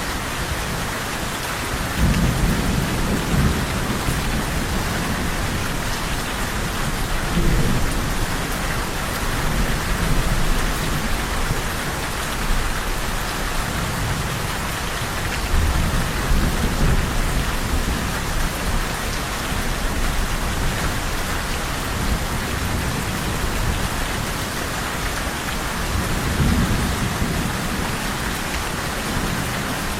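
Steady heavy rain falling, with low rolls of thunder rumbling up several times.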